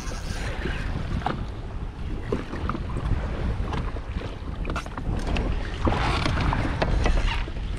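Wind buffeting the microphone and water sloshing against the hull of a drifting offshore fishing boat, a steady rumbling noise with a few faint knocks.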